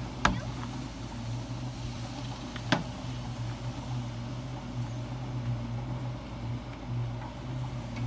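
A machine running with a steady low hum, with two sharp clicks, one just after the start and one about three seconds in.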